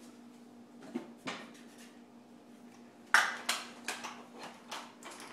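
Small plastic toys knocked and set down on a wooden table: a single click about a second in, then from about three seconds in a rapid run of sharp clacks and rattles, over a faint steady hum.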